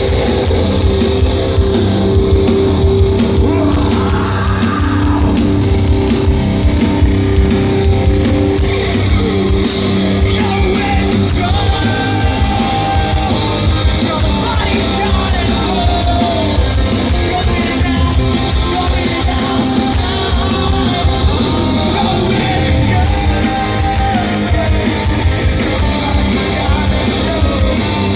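Live heavy rock band playing loud through a festival PA, with distorted guitars, drums and shouted vocals.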